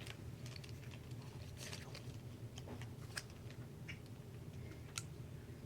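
Faint, irregular clicks and light rattles of cut plastic drinking-straw pieces being pushed onto a stainless steel wire, over a low steady hum.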